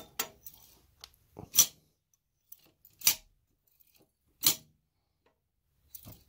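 Lockwire twisting pliers spun to twist stainless safety wire, three short metallic zips about a second and a half apart, with a fainter one near the end.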